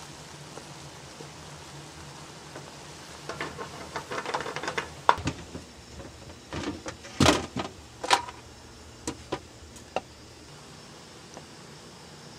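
A large plastic food-storage container and its lid being handled in a refrigerator: a run of knocks and clicks, the loudest a sharp clatter about seven seconds in, over a steady low hum.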